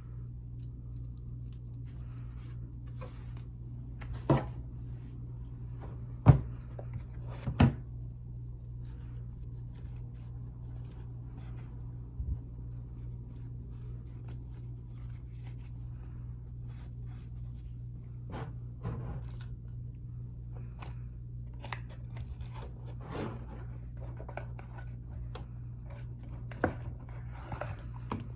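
A wristwatch and its packaging being handled: scattered light clicks and knocks, with three louder knocks about four, six and seven and a half seconds in, over a steady low hum.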